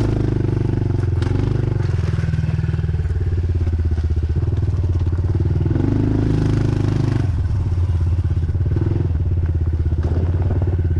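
Dirt bike engine running on a trail ride, its revs rising and falling with the throttle, with a few short knocks and clatter.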